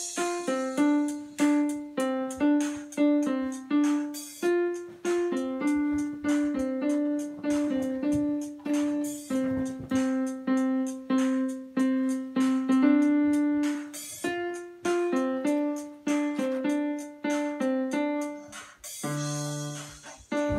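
Solo piano played on a keyboard: a slow melody of single notes in the middle register, each struck and left to fade, at about one to two notes a second.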